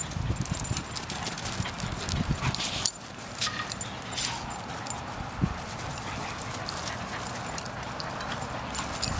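Saluki and German shepherd running and play-chasing on grass: a fast, uneven patter of paw thuds on turf.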